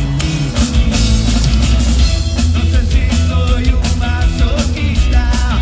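Live rock band playing at full volume: a drum kit beating a steady rhythm, with electric guitar over heavy bass.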